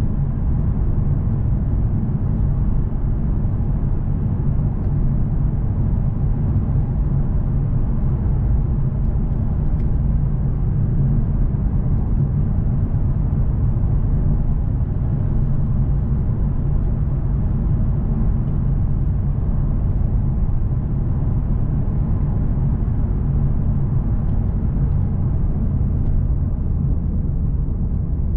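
In-cabin sound of a Lexus RC F Track Edition's 5.0-litre V8 cruising at a steady speed: an even, low engine drone mixed with tyre and road noise, with no revving or gear changes.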